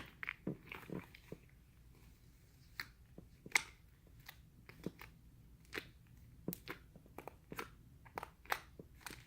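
Green jelly slime squished and stretched by hand, giving faint, irregular little clicks and pops.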